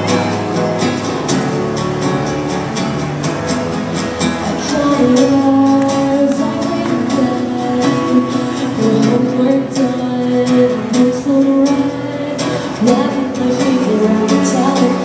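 Live acoustic performance: a woman singing into a microphone over two strummed acoustic guitars, heard through PA speakers. She holds long notes.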